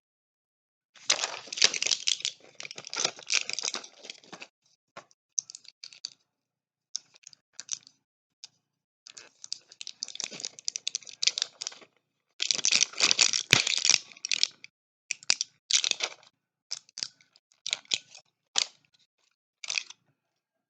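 Mucinex DM tablet packaging handled and opened: irregular bursts of cardboard and plastic crinkling and rattling, with a sharp click about two-thirds of the way through.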